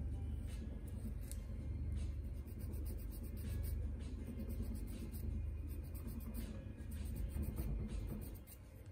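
Nail file rubbing back and forth across a big toenail as it is shaped, stopping near the end.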